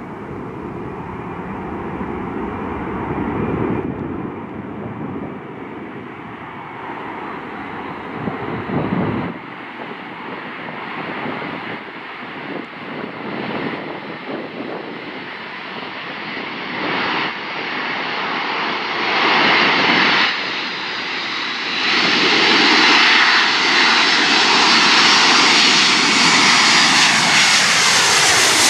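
Jet engines of a Boeing C-17 Globemaster III on final approach, growing steadily louder as it comes in, with a high turbine whine rising over the jet noise in the second half. Near the end the pitch falls as the aircraft passes overhead.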